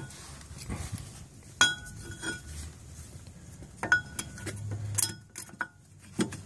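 New front brake pads being set into the caliper bracket of a 1999 Toyota Camry: the steel pad backing plates and their clips clink against the bracket several times, sharp metallic clicks with a brief ring.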